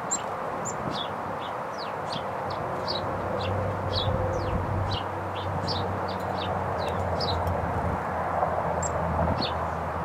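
Small songbirds calling: a run of short, high chirps, each falling in pitch, two or three a second, over a steady low background rumble that gains a low hum a few seconds in.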